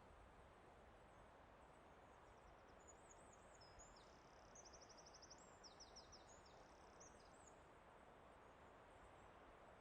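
Faint forest ambience: a steady soft rush of wind or flowing water, with a small songbird singing high, quick trills and rapid repeated notes in the middle.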